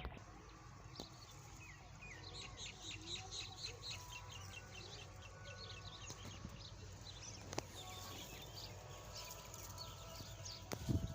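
Birds in a farmyard chirping in a quick run of short, high calls, over a steady low hum. A single low thump comes near the end.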